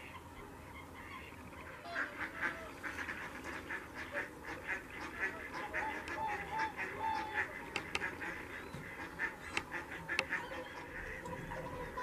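A large flock of waterfowl calling, many short overlapping calls that thicken into a dense chorus from about two seconds in.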